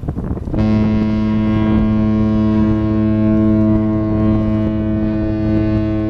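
Cruise ship AIDAmar's deep horn sounding one long, steady blast that starts about half a second in and is still going at the end, over wind on the microphone.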